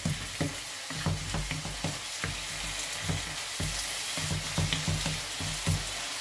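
Chopped tomatoes and onions sizzling in a nonstick frying pan while a spatula stirs and presses them down to mash them, scraping and tapping against the pan in irregular strokes over a steady frying hiss.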